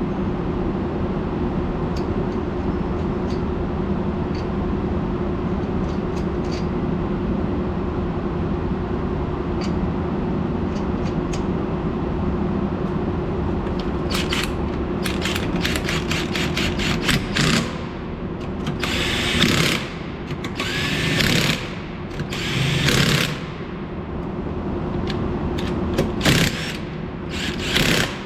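Cordless power tool running in several short bursts, with rapid clicking before them, as lug nuts are spun off a car wheel; the nuts are loose and come off without resistance. A steady hum of garage ventilation runs underneath.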